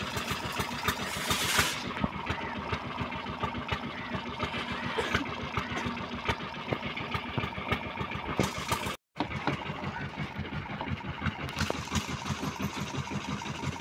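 Old diesel engine driving a tube-well drilling rig, running steadily with a fast, even chugging beat. The sound drops out for an instant about nine seconds in.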